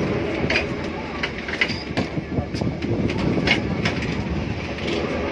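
Vintage electric street tram rolling along its rails, heard from inside the driver's cab: a steady rumble and rattle, with irregular clicks and knocks from the wheels on the track.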